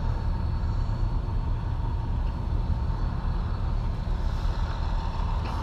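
Excavator's diesel engine idling steadily: a continuous low rumble with a faint steady whine above it.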